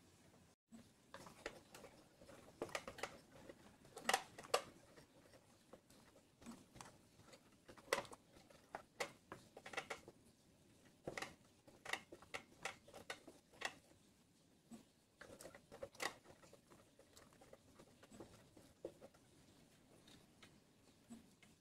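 Spatula stirring a thick, sticky mashed-squash mixture in a metal pot, scraping and tapping against the pot's sides and bottom: faint, irregular scrapes and clicks, often several in quick succession.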